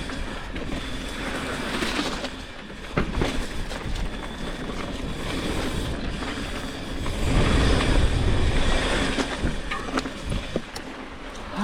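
Mountain bike riding down a dirt trail, heard from a rider-worn action camera: wind rumble on the microphone and tyre noise on the dirt, with the bike knocking and rattling over bumps. It is loudest about seven seconds in.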